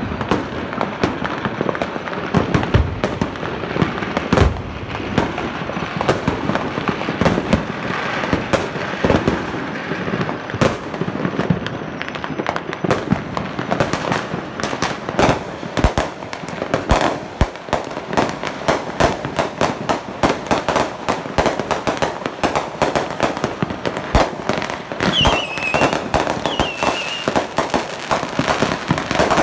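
Many fireworks and firecrackers going off at once: a dense, unbroken crackle of pops and bangs, with heavier booms scattered through.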